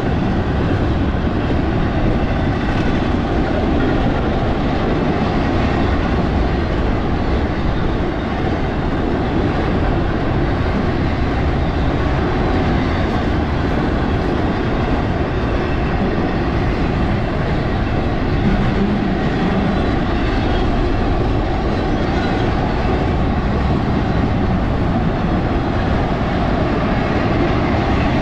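BNSF freight train rolling past, a steady rumble of wheels on rail that doesn't let up.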